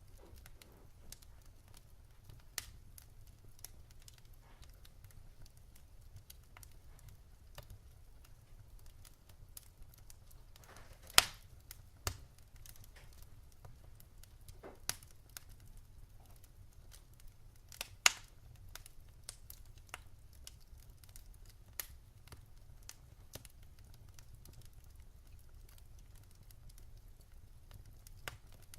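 Wood fire crackling: scattered sharp pops and snaps, two much louder ones near the middle, over a faint low rumble.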